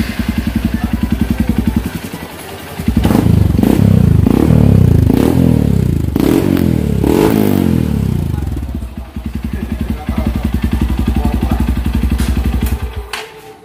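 Honda CRF150L's single-cylinder four-stroke engine running through a newly fitted Norifumi Noctus T3 aftermarket exhaust: idling with an even beat, then revved up and down several times with throttle blips, then settling back to idle.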